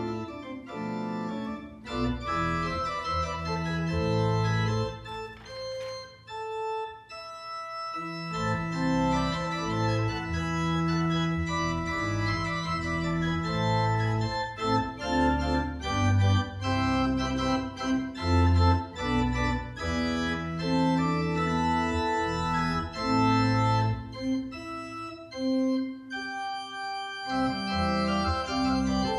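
Organ postlude: sustained chords and a melodic line moving every second or so, thinning briefly about six seconds in before the full sound returns.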